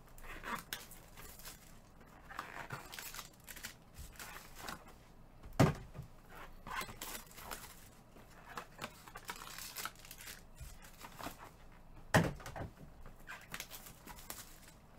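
Foil-wrapped trading card packs and their cardboard boxes being handled, the foil crinkling and tearing. Two sharp knocks come about six and twelve seconds in.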